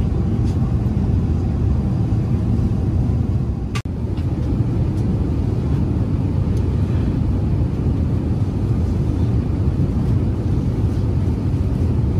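Steady low rumble of an Airbus A380 airliner's cabin in cruise: engine and airflow noise heard from inside the cabin. It cuts out for an instant with a click about four seconds in, then carries on unchanged.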